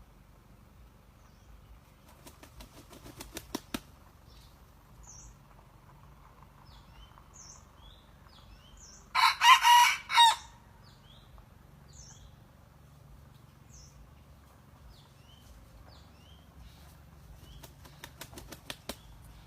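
A red junglefowl rooster flaps its wings in a quick run of claps that speeds up, then crows once about nine seconds in, a short call in about four parts. Another run of wing claps comes near the end, and faint high chirps sound throughout.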